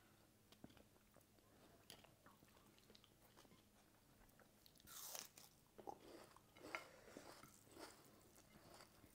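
Faint crunchy bites and chewing of raw onion slices, with louder crackly bites about five to seven seconds in.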